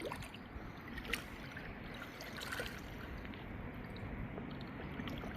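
Lake water sloshing at the bank's edge as a released carp swims off, with a few short splashes.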